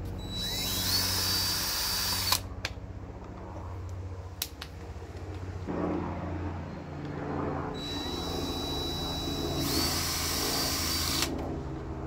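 Cordless drill whirring as it bores holes through a container lid, in two runs of about two and three seconds. In each run the whine steps up in pitch partway through. Between the runs come a couple of sharp clicks.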